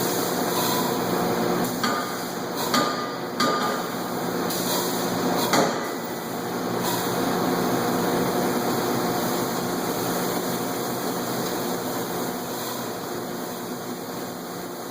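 Chambersburg forging hammer in operation: four sharp knocks from about two to six seconds in, over the steady hum of running machinery that eases off toward the end.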